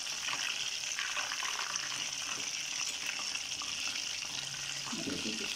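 Gram-flour-battered chicken pieces deep-frying in hot oil in a karahi: a steady sizzle with a fine crackle.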